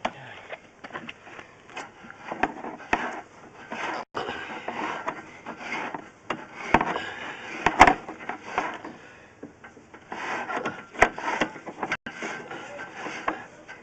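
Irregular scraping and rubbing with scattered sharp knocks, from a drain survey camera and its push rod being worked along the pipe. The loudest knock comes about eight seconds in.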